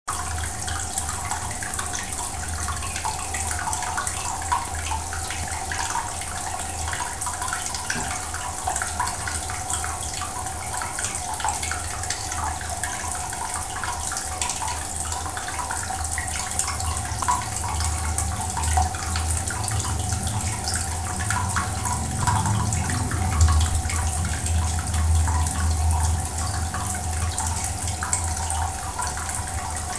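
Aquarium water running and splashing steadily, full of small crackles, over a steady hum and a low rumble that grows somewhat louder in the second half.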